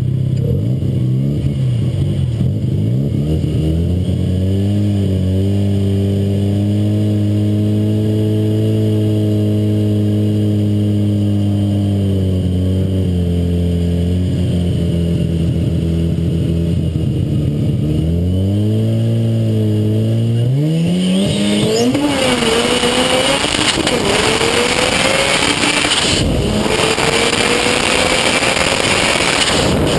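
Car engine idling at the line with a slightly wavering pitch, revving up after about 18 seconds, then launching hard about 21 seconds in. The engine climbs in pitch, drops at a gear change and climbs again over loud wind and road rush.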